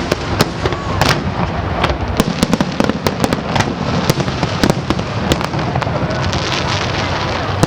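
Aerial fireworks going off in quick succession: a continuous rumble of bursts with many sharp cracks and bangs overlapping.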